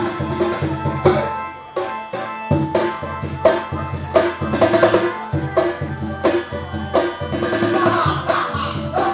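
Dance music with a steady drum beat and pitched instrumental parts, thinning out briefly near two seconds in before the beat resumes.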